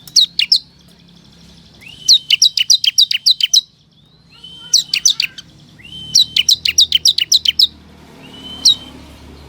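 Bar-winged prinia (ciblek kristal) song: rapid trains of sharp, high downslurred notes, about six a second, in bursts of one to two seconds with short pauses between, and one lone note near the end. It is a lure song meant to draw wild ciblek to answer.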